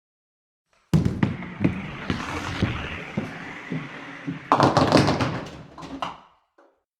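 Bowling ball landing on the lane with a thud about a second in and rolling with a low rumble, then striking the pins about four and a half seconds in; the pins clatter and scatter for over a second before dying away.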